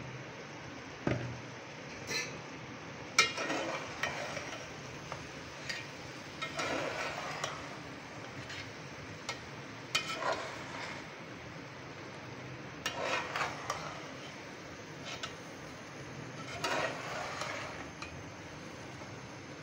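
A metal slotted spoon stirring and turning rice in an aluminium pot: scraping strokes every few seconds and sharp clinks of metal on metal.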